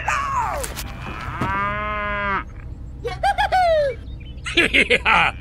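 A cow mooing once, one long call lasting about a second, as a sound effect. Shorter squeaky, chirping calls come before it and near the end.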